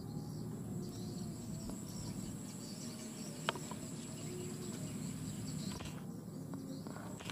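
Insects calling steadily in a high, even trill, with a single sharp click about three and a half seconds in.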